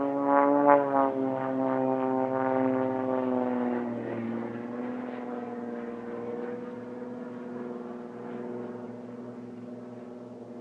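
Propeller-driven Extra 300L aerobatic aircraft droning overhead. The engine note slides down in pitch over the first four seconds as they pass, then holds steady and slowly fades.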